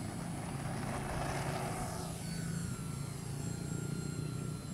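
Propeller and motor of a foam RC model plane whining in flight, swelling briefly about a second in as the plane passes.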